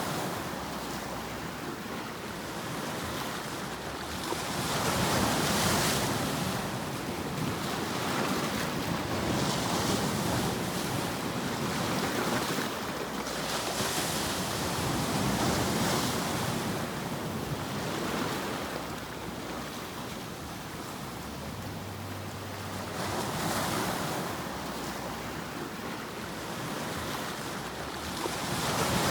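A continuous rushing noise, as in a white-noise sleep track, that swells and ebbs every few seconds in the manner of surf.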